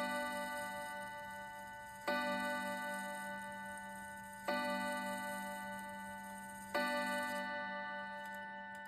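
Urgos triple-chime clock movement striking the hour on its chime rods: the same ringing note struck three times, about two and a half seconds apart. Each strike fades slowly into the next.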